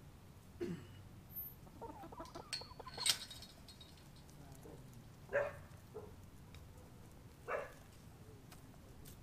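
Backyard hens clucking in short, separate calls, about four over several seconds, with a sharp click about three seconds in.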